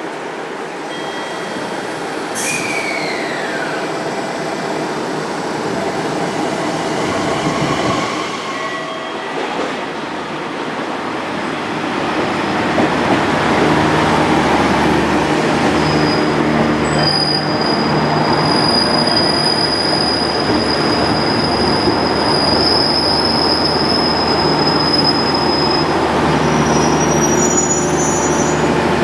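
JR Kyushu KiHa 66/67 diesel railcar coming in, with a brief squeal falling in pitch a couple of seconds in. From about halfway it stands with its diesel engines idling in a steady hum, with a thin high tone over it for a while.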